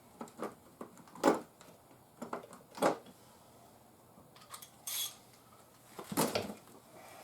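Scattered sharp metallic clinks and clanks of hand tools and wheel hardware being handled during a wheel install, the loudest about a second in, with a short scrape in the middle.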